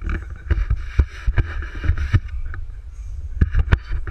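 Irregular knocks and bumps over a low rumble: handling noise from a camera on the end of a wooden pole being jostled and moved about.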